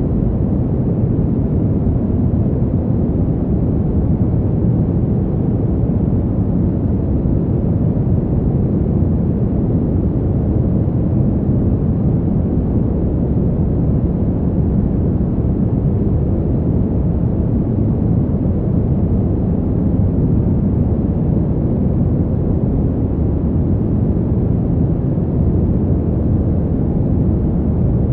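Fan heater's fan running steadily: a constant, deep rushing noise with no hum or whine and no changes.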